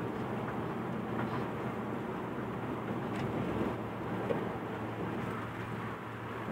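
Road and engine noise inside a moving car on a highway: a steady rumble with a low hum.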